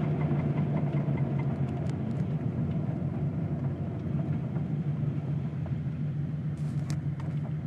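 1984 Porsche 911's air-cooled flat-six engine running steadily, with a quick regular clicking, about five a second, that fades out in the first second or two. It is the mysterious clicking noise the owner is chasing. A few sharp separate clicks come near the end.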